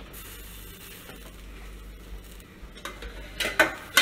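Chicken sizzling as it fries in a covered pan, then several sharp metal clanks near the end as the lid is lifted and a metal utensil strikes the pan.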